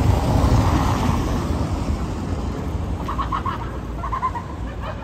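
Tyre and engine noise of a passing car on a wet cobbled street, a rushing sound that is loudest in the first second and then fades. About three seconds in come a few short, rapid high-pitched calls.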